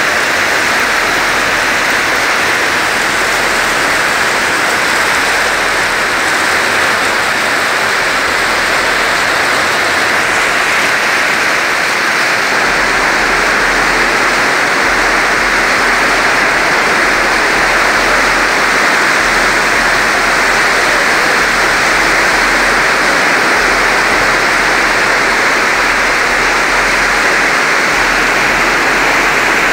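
Heavy wind-driven rain of a microburst thunderstorm, a loud, steady wash of noise that never lets up.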